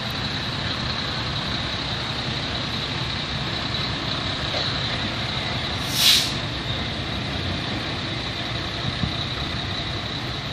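Diesel semi tractor running at low speed as it pulls a loaded lowboy trailer past, with one short, sharp air-brake hiss about six seconds in.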